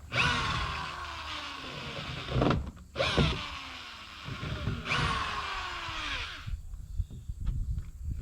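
Corded electric drill backing screws out of old pine door boards, run three times in bursts of one to two and a half seconds, its pitch sinking during each run.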